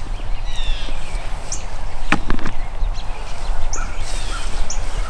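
Small birds calling in short high chirps, several times, over a steady low rumble, with a couple of sharp knocks about two seconds in.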